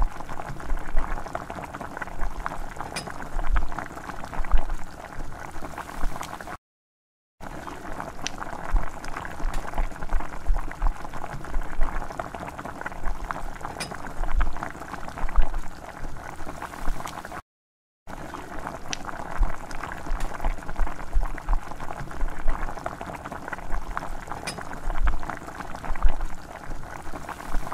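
Liquid bubbling at a boil, with a steady crackle of small bubbles and occasional low thumps. It cuts out to silence twice, briefly.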